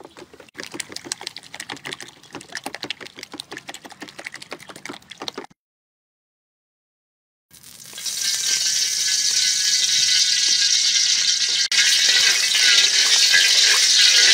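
A wooden spoon beating eggs and red chilies in a large steel bowl: rapid clattering strokes that stop abruptly about five and a half seconds in. After two seconds of silence, hot oil sizzles steadily in a large wok.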